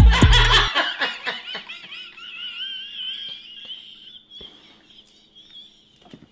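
Bass-heavy music cuts off under a second in, then a person lets out a very high, wavering wail, like exaggerated crying, that fades away over about four seconds.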